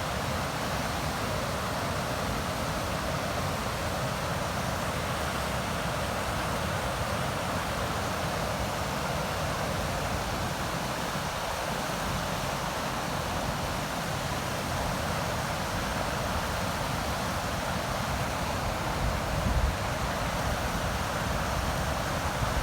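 River water rushing in a steady, even noise, with low gusts of wind buffeting the microphone, strongest about three-quarters of the way through.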